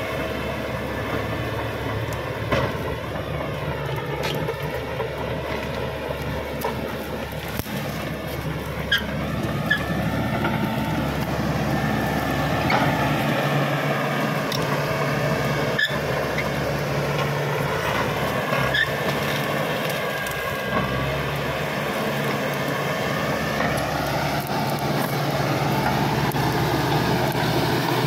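Caterpillar D5K XL bulldozer's diesel engine running under load, its pitch rising and dipping as the machine works, with a few sharp knocks along the way.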